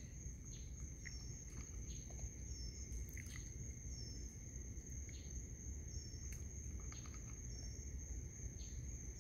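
Night insects, crickets, trilling steadily at a high pitch, with a short repeating chirp about every second and a half. A few faint clicks sound against a low background rumble.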